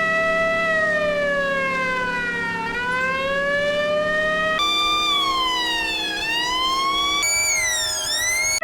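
An old sheriff's car siren sound effect: one slow wail that sinks in pitch and climbs back. It then plays twice more as edited variations, about halfway through and again near the end, each higher in pitch and with a quicker dip.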